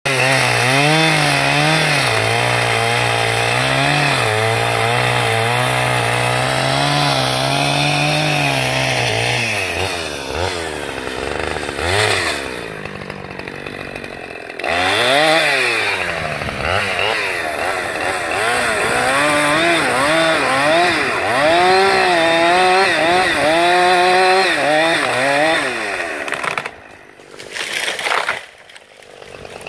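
Petrol chainsaw cutting into a tree trunk, its engine pitch rising and falling as the chain bites and eases, dropping back briefly about halfway through before revving into the cut again. Near the end the saw falls away and the cut tree comes down through its branches.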